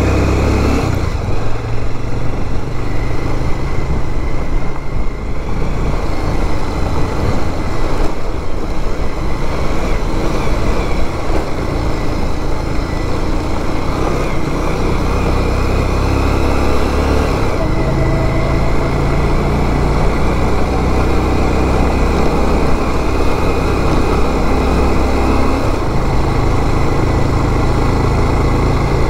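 Bajaj Pulsar 180 motorcycle's single-cylinder engine running under load on a rough off-road track, with a steady rushing noise over it. The engine note steps up and down several times.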